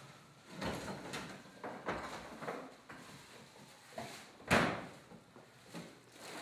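A string of irregular knocks and clattering handling sounds, the loudest a sharp knock about four and a half seconds in.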